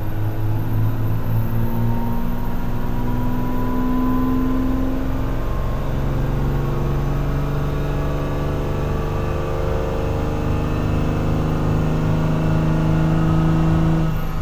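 A 410,000-mile 12-valve Cummins 5.9-litre inline-six diesel pulling under load on a chassis dyno during a full power run. Its pitch climbs slowly and steadily, then falls sharply near the end as the throttle is let off.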